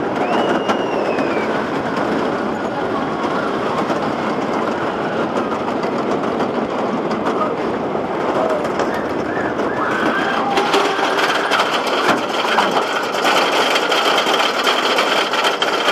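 GhostRider wooden roller coaster train running along its track with a steady rumbling clatter, and a brief high squeal falling in pitch about a second in.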